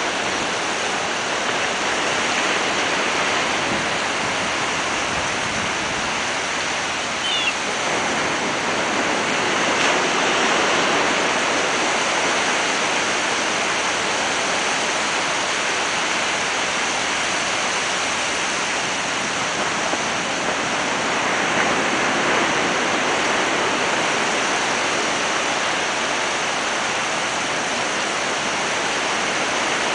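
Ocean surf washing onto the beach, a steady rushing noise that swells a few times. One brief high chirp about seven seconds in.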